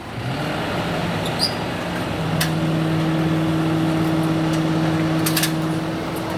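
A vehicle engine runs close by: its pitch rises over the first second or so, then it settles into a steady idling hum. A few short sharp clicks sound over it.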